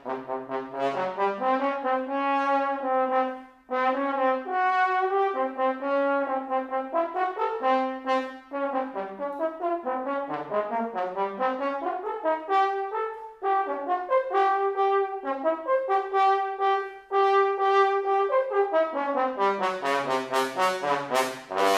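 Unaccompanied tenor trombone playing a fast, wide-ranging melodic line, with a few short breaks for breath. Near the end it plays a quick descending run down to a low note.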